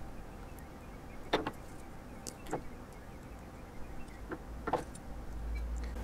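A few faint, scattered clicks and taps of small hand tools and electronic component leads being handled on a perfboard, over a steady low hum.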